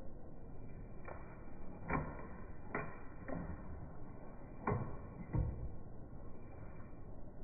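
Empire Sniper pump-action paintball marker being shot and pumped: six sharp pops and clacks, irregularly spaced.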